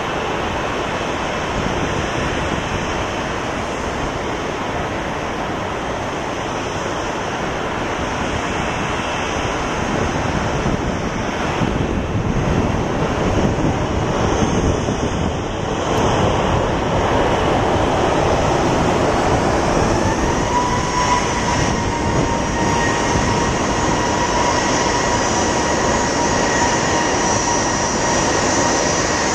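Airbus A321-231's IAE V2500 turbofan engines on final approach: a steady rushing noise that grows louder as the jet comes closer, with a steady engine whine joining about two-thirds of the way through.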